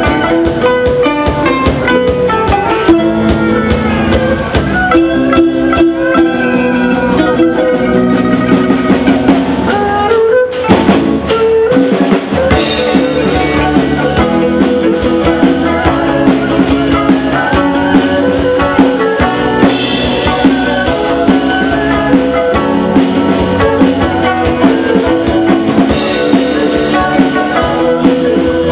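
Live Chinese instrumental ensemble playing: plucked pipa and ruan with erhu, keyboard and drum kit over a steady beat. A brief drum fill about ten seconds in leads into a section with cymbal crashes every several seconds.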